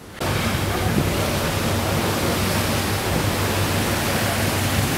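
A ferry's wake churning and wind on the microphone make a steady rushing noise over a low, steady engine drone.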